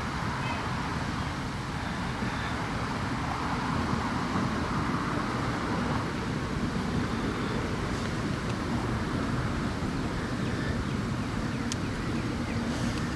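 Steady background rumble of distant city traffic, swelling slightly a few seconds in, with a single faint click near the end.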